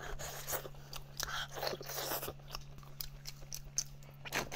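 Close-up eating sounds: wet biting and chewing on braised spicy goat shank meat, with many short sticky clicks and smacks of the mouth.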